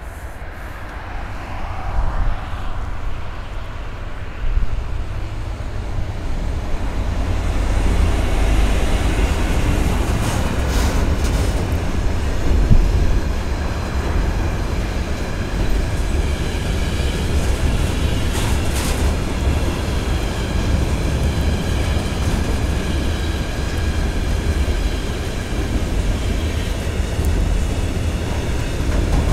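Freight train hauled by a Class 66 diesel locomotive passing close by: the two-stroke EMD V12 engine's low rumble swells over the first several seconds as the locomotive approaches and passes, then a steady rumble of rolling pressurised gas tank wagons follows, with brief clatters of wheels over rail joints and a faint high wheel squeal.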